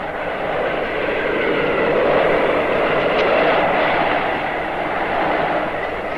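Arctic blizzard wind: a dense, gusting rush that swells over the first couple of seconds, with thin whistling tones wavering above it.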